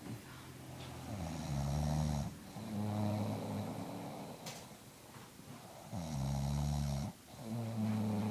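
An elderly woman snoring in deep sleep: a low, pitched snore on each breath in and each breath out, twice over in slow, even cycles.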